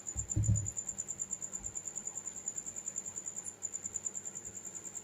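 A cricket chirping steadily in the background, a high thin trill pulsing about ten times a second. A dull low knock sounds about half a second in.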